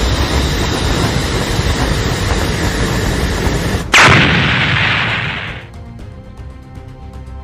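Cartoon sound effects of cannon fire and explosions: a long, loud, noisy blast, then a sudden sharper shot about four seconds in that dies away over a second or two, leaving background music.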